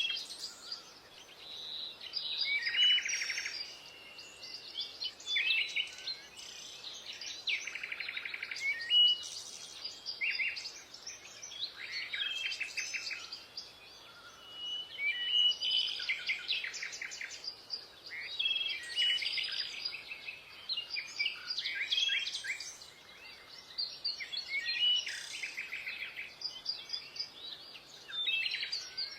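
Songbirds chirping and singing: a continuous run of short chirps, trills and whistled notes.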